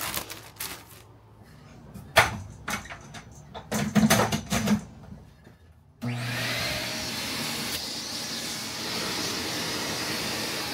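A few scattered knocks of handling, then a canister wet/dry shop vacuum switched on about six seconds in and running steadily.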